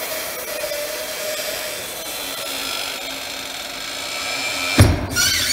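Tire changer's pneumatic bead breaker hissing steadily as its blade presses into the tire sidewall, then a loud thump nearly five seconds in as the tire bead breaks loose from the rim.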